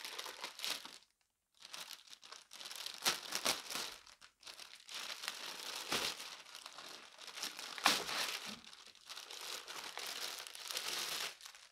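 Packaging crinkling and rustling as a vacuum cleaner attachment is unwrapped by hand. It comes in spells with sharp crackles and two short pauses.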